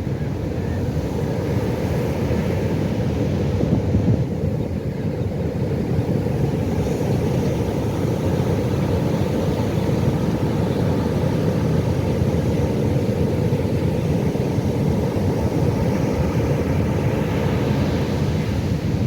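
Pacific Ocean surf: a steady low rumble of breaking waves, with a hissing wash swelling up near the end.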